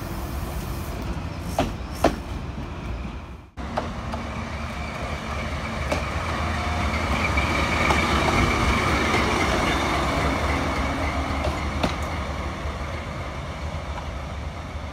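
A Meitetsu 2230-series electric railcar, hauled unpowered, rolls past close by, its wheels clicking sharply over rail joints about two seconds in. After a cut, a blue diesel shunting locomotive's engine runs with a faint steady whine. It grows louder as the locomotive passes close, then fades as it moves away.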